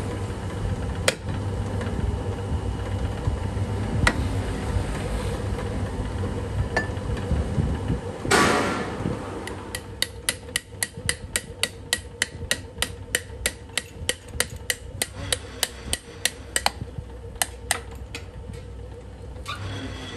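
A hammer tapping a ball bearing down into the bore of a machined steel hub: quick, light metallic taps, about three or four a second, through the second half. Before the taps, a steady machine hum with a few single knocks and one short, loud rush of noise.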